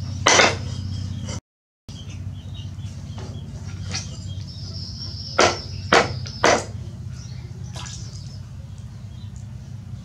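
Kitchen knife knocking on a wooden log chopping block as raw pork is cut: a sharp knock just after the start, then three more about half a second apart in the middle, over a steady low hum.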